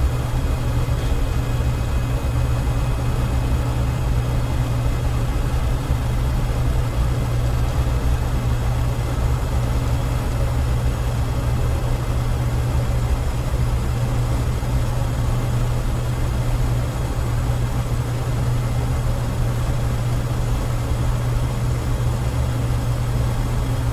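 Steady flight-deck noise of a Boeing 727-100F in the climb: the drone of its three JT8D turbofans and the rush of air over the cockpit. It is loud and unchanging, strongest at the low end with an even hiss above.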